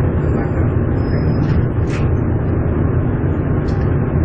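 Steady low rumble of the Orlando airport shuttle train running along its guideway, heard from inside the car, with a couple of brief faint higher sounds over it.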